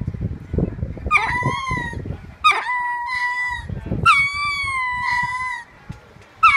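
Male ring-tailed lemurs calling out to females and infants kept off exhibit: three long calls in a row, each a quick upward sweep settling into a level, slightly falling note of about a second or more.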